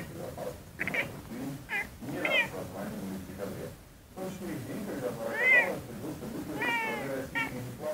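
Domestic cat meowing repeatedly, a series of short high meows, with a longer rising-and-falling meow about five and a half seconds in and two more short ones near the end.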